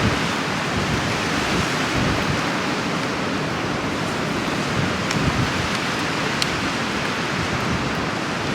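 Strong storm wind blowing hard over the microphone: a loud, steady rushing noise with gusty low buffeting.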